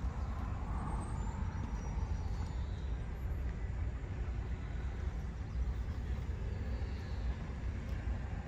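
Wind buffeting the microphone outdoors: a steady, uneven low rumble.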